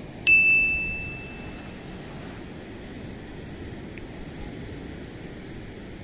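A single bright ding about a quarter second in, ringing out over about a second and a half: an edited-in notification sound effect accompanying a subscribe-button graphic. Behind it, the steady rush of surf and wind.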